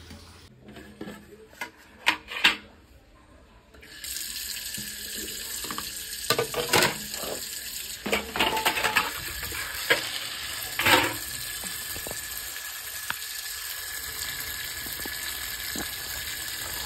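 A few sharp knocks, then from about four seconds in a tap running steadily into a plastic basin of crabs, with occasional knocks and splashes as the crabs are rinsed of mud.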